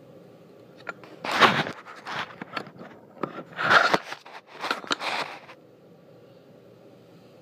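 Handling noise: cloth and hands rubbing and scraping against the recording camera's microphone in a run of loud rustling bursts, starting about a second in and stopping after about five seconds.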